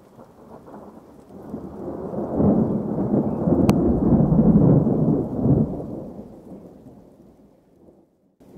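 A deep rumble that swells to a peak around the middle and then fades away, with one sharp click about halfway through.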